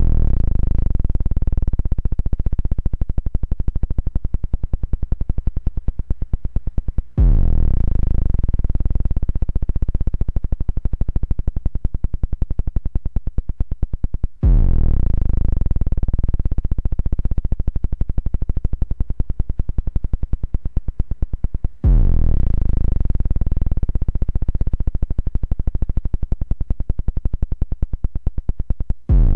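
Apple II one-bit speaker clicking in a rapid, rough buzz: the audio of a 32-byte intro. The pattern starts over about every seven seconds, each time opening with a brief falling sweep.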